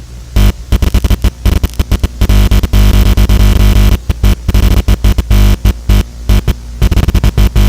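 Very loud, distorted electronic music with a heavy bass, chopped by rapid, irregular drop-outs into a stuttering, glitchy racket.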